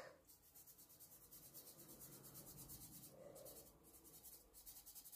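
Faint, soft scratching of a thin pen-like tool stroking gold paint onto a paper cut-out, barely above room tone.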